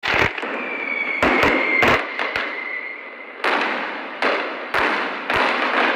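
Fireworks: a string of about ten sharp bangs and cracks, each followed by a fading crackle, with a thin whistle that dies away about two seconds in.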